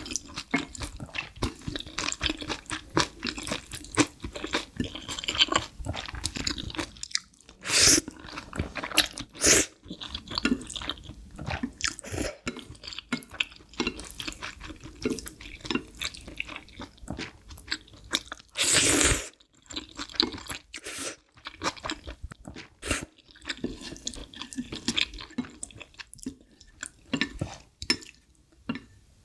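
Close-miked eating of black bean noodle sauce and green onion kimchi: wet chewing and mouth sounds, with a wooden spoon and chopsticks scraping the leftover sauce together on the plate. A few louder slurps stand out, one about a second long near the middle.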